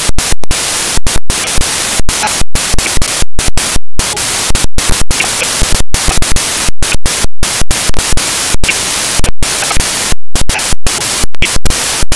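Loud static hiss across all pitches, cut every fraction of a second to a second by abrupt, brief dropouts to silence at irregular intervals: the sound of a corrupted, glitching recording.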